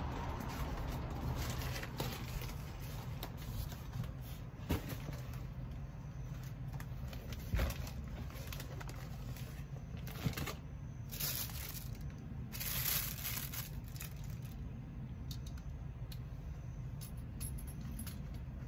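Plastic and packaging rustling and crinkling as items are handled and packed into a cardboard box, with scattered light knocks and two longer hissing rasps about ten and thirteen seconds in, over a steady low rumble.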